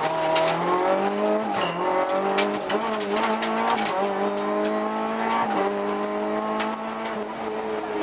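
Rally car engine heard from inside the cabin, driven hard: the revs climb and drop back several times as it changes gear. Frequent sharp clicks and knocks come through over the engine.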